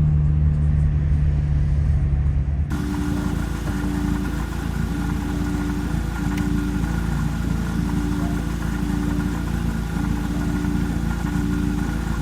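Vehicle running, with a steady low hum that changes abruptly about three seconds in to a noisier rumble. Faint short tones repeat under it, about one a second.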